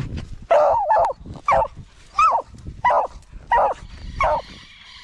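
A beagle baying in a run of about seven loud barks, each rising and falling in pitch, roughly one and a half a second: a hound giving tongue on rabbit scent.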